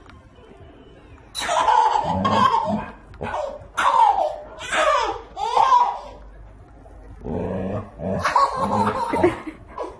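Laughter in three bouts, about a second and a half in, near the middle, and again near the end, with pitch sliding up and down.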